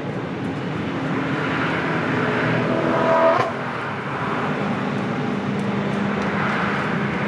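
Steady rushing outdoor background noise, with a brief rising tone that peaks about three seconds in.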